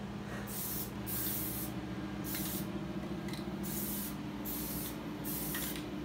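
Aerosol spray can of Plasti Dip rubber coating hissing in short bursts: about six sprays, each under a second long, with brief pauses between them.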